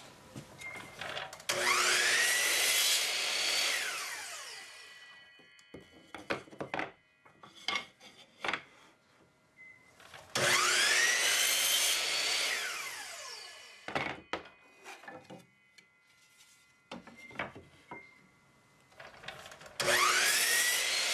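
Electric compound miter saw started three times, about nine seconds apart. Each time the motor whines up to speed, the blade cuts through a strip of wood, and the motor winds down. Knocks of wood pieces being handled come between the cuts.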